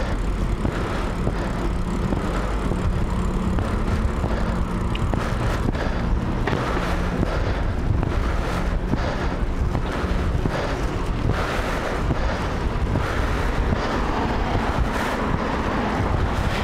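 Steady wind rush and low rumble on the microphone of a bicycle rider's camera while riding.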